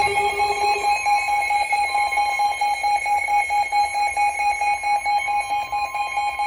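Several weather radios sounding their alert alarms together, signalling an incoming severe thunderstorm warning: steady high electronic tones layered with a rapidly pulsing beep. A lower tone drops out about a second in.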